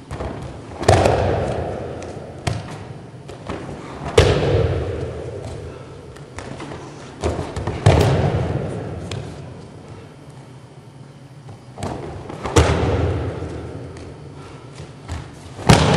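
Judo throws and breakfalls on tatami mats: five heavy thuds of bodies and slapping arms hitting the mat, one every three to four seconds, each echoing away over a couple of seconds.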